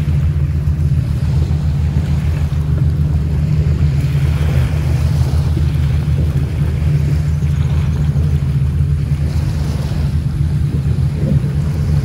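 A boat's engine running steadily, a low, even drone with no change in pitch.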